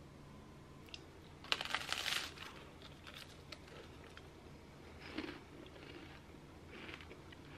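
Crunching of a crisp puffed rice cake being bitten into. A loud crackly crunch comes about a second and a half in, followed by several softer crunches of chewing.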